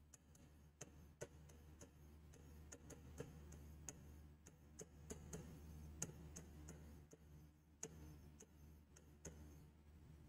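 Faint, irregular clicks and taps of a stylus on the glass of an interactive display as a word is written, over a low steady hum.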